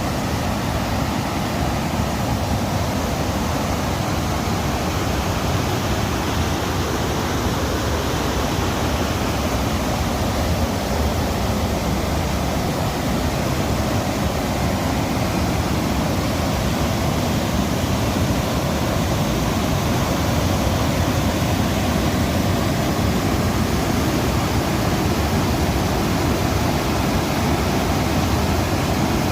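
Stream water rushing with a steady, even roar.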